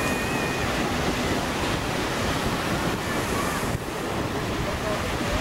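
Choppy waves breaking on the shore, with strong wind buffeting the microphone.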